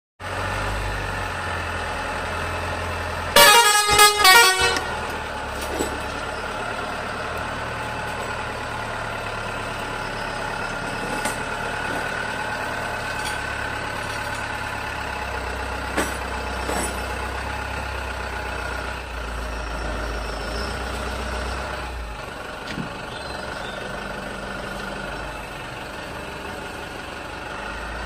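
Vehicle horn, likely the minibus's air horn, sounding a few quick loud blasts about three seconds in, over the steady low rumble of the idling engine.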